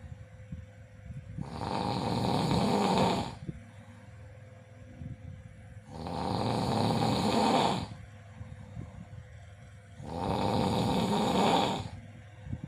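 A person snoring: three long, rasping snores about four seconds apart, with quieter breathing between them.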